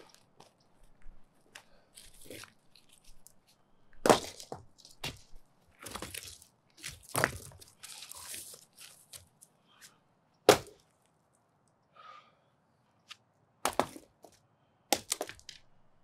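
Hand demolition of a concrete sidewalk with a sledgehammer and crowbar: a series of sharp, cracking impacts of steel on concrete, the loudest about four and ten seconds in. Between the impacts come scraping and gritty clatter of broken concrete.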